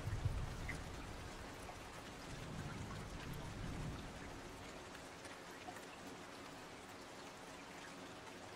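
Faint rain ambience: a steady hiss with scattered small drips, over a low rumble that dies away about four seconds in.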